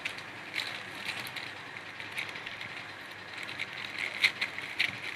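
Thin clear plastic sheet crinkling in small irregular crackles as fingers press dough balls flat beneath it.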